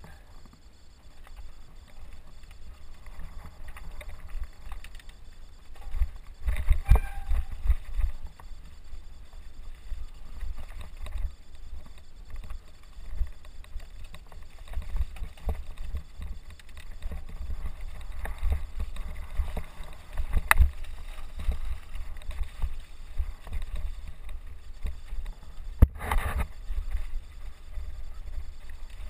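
Mountain bike riding over a rocky trail, heard through the onboard camera: a steady low rumble on the microphone with knocks and rattles from the bike over stones, and sharper jolts about seven seconds in and near the end.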